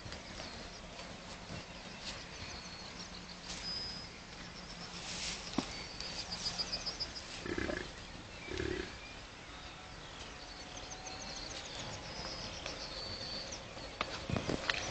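American bison grunting twice, short and low, about halfway through, with birds chirping and trilling in the background.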